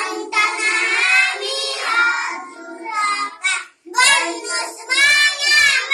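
A group of young children singing a morning prayer together in unison, with a brief break for breath about four seconds in.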